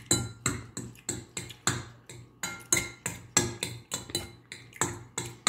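Metal fork clinking against a ceramic plate in quick repeated strokes, about three a second, as macaroni is scooped up fast. Each clink rings briefly.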